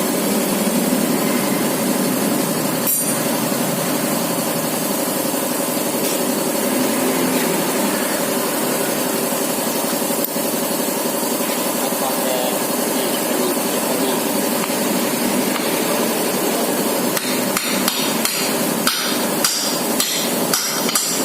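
Hammer tapping a new seal into place in a Honda Vario's water pump: a single tap early on, then a quick run of sharp taps in the last few seconds, over a steady background hum.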